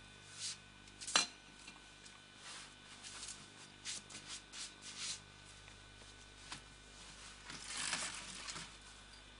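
Light clinks and knocks of small hard objects being handled, about a dozen at irregular intervals, the sharpest about a second in, followed near the end by a scraping rustle lasting about a second.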